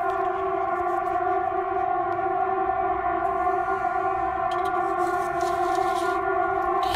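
A steady, unwavering chord of several horn-like tones, like dozens of car horns sounding at once: most likely an outdoor warning siren being tested.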